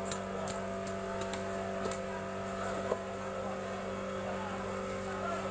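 A steady machine-like hum throughout, with scattered light clicks and knocks from pangas fish being sliced and handled on a fixed upright cutting blade (boti); the sharpest knock comes about three seconds in.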